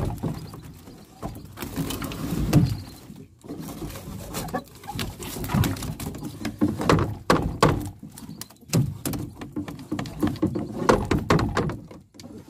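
Wire-mesh fish trap being handled over a wooden boat: irregular knocks, thuds and rattles of the mesh and frame against the hull.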